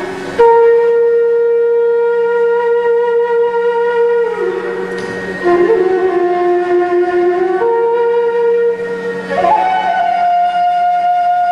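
Bamboo bansuri flute playing a slow melody of long held notes. The line steps down, comes back up, then rises to a higher note about nine seconds in, over a low steady drone.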